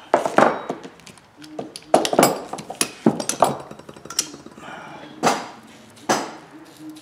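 Metal tools and chainsaw parts clanking on a workbench as a bearing puller, a steel bar and a crankshaft are handled and set down: a string of sharp knocks and clinks at uneven intervals.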